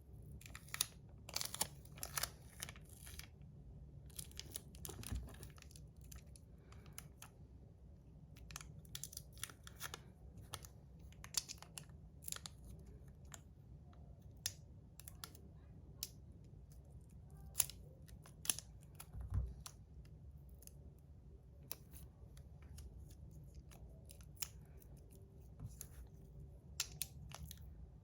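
Tape being handled, torn and snipped with scissors: scattered short snips, crinkles and light clicks at irregular intervals. The tape is being fitted inside a 3D-printed slider fidget to stop it rattling.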